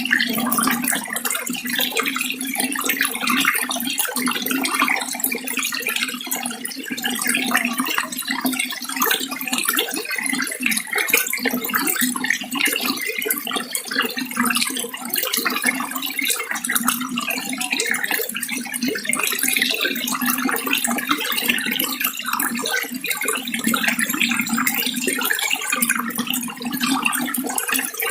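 Water running and splashing steadily, a continuous, even rush with no pauses.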